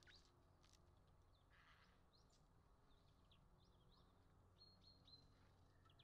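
Near silence: faint chirps of small songbirds over a low steady hum, with three short high whistled notes about five seconds in.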